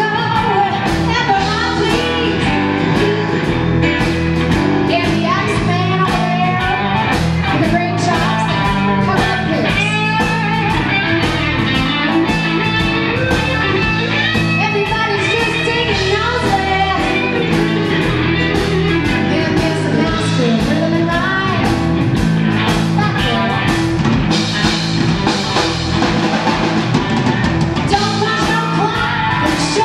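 Live blues band playing with electric guitar, keyboard, bass and drums, and a woman singing over them.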